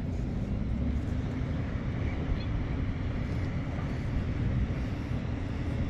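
Steady low rumble of beach ambience, with no distinct events.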